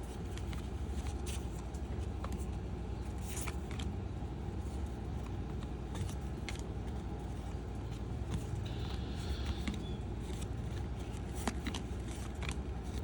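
Baseball trading cards being flipped through by hand: irregular soft clicks and slides of card on card, over a steady low background hum.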